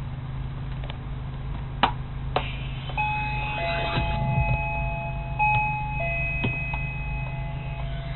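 Two sharp clicks, then steady electronic tones held for a second or more each, two pitches overlapping and restarting, over a steady low hum.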